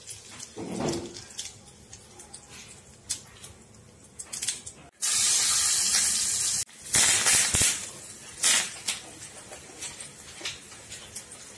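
Hot oil in a small tadka pan, with mustard seeds and asafoetida, crackling with scattered pops. About five seconds in comes a loud hiss of sizzling as green chilies and curry leaves hit the oil, and it cuts off suddenly. Loud spattering and crackling follows, then a few separate pops.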